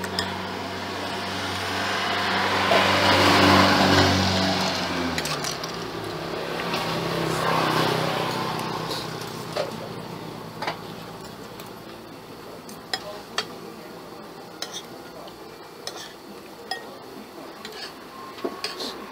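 A motor vehicle goes by, its engine rising to the loudest point a few seconds in and dropping in pitch as it passes, with a smaller swell soon after. Then a spoon clinks now and then against a plate and bowl.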